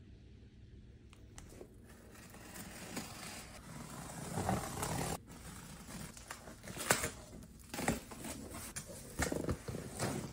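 Cardboard shipping box being opened: scissors cutting through packing tape, and the cardboard flaps rustling and scraping as they are pulled open, with a few sharp clicks.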